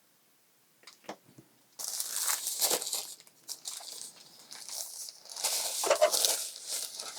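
Packaging crinkling and rustling in two long bouts as a new keyboard is unwrapped from its packing, starting about two seconds in and again in the second half.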